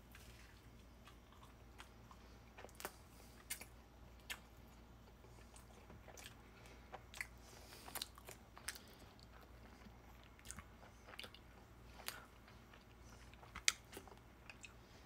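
Faint crunching and chewing as a person bites into and eats a burnt grilled ham and cheese sandwich, a dozen or so short, sharp, irregular crunches, the loudest near the end.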